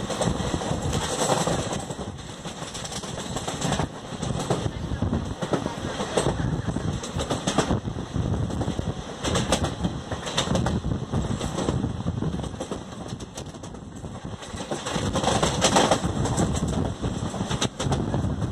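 An express train's wheels running over the track, heard from an open coach doorway: a steady rumble with irregular clacks over rail joints.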